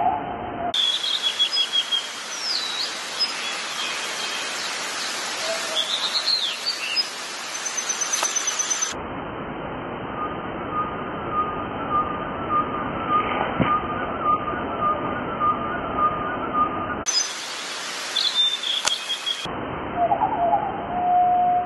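Small birds chirping over a steady outdoor hiss, with a thin pulsing tone in the middle stretch. The background changes abruptly several times, as if pieced together from different recordings.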